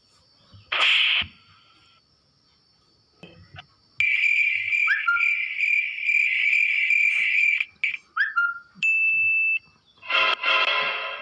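A run of short comedy sound effects played one after another: a brief burst, a long steady shrill sound, two quick rising whistle slides, a short steady whistle tone, and a buzzy burst near the end.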